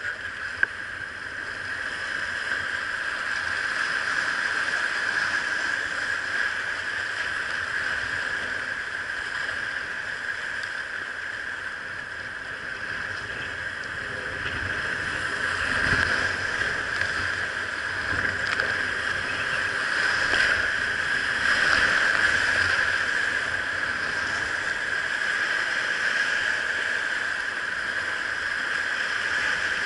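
Steady rush of moving river water around a kayak, swelling louder for a stretch a little past halfway.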